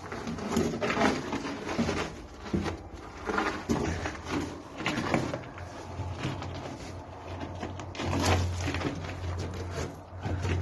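Irregular scuffing, scraping and knocks as a person squeezes and climbs out through a tight exit.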